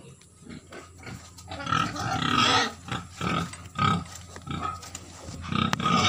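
White pigs squealing: a long loud squeal about two seconds in, a few short ones after it, and another loud squeal near the end.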